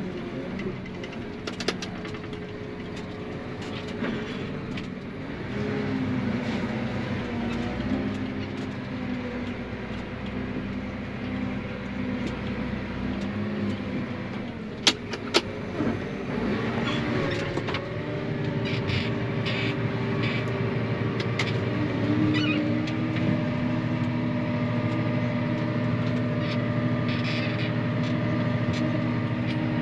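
A vehicle engine running steadily, picking up speed twice, about six seconds in and again about two-thirds of the way through, with two sharp clicks about halfway through.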